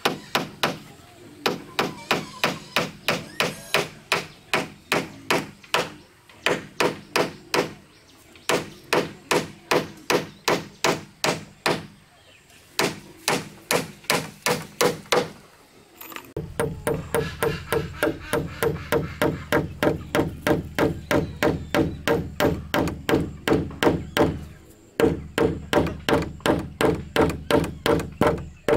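Hammer driving nails into wooden planks: a fast, steady run of strikes, about three a second, broken by a few short pauses.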